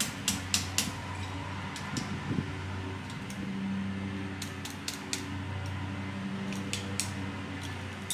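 A steady fan-like hum with a run of light, sharp clicks and taps, several in the first second and a few more scattered later, as a copper pin and knife handle parts are handled and set on the bench.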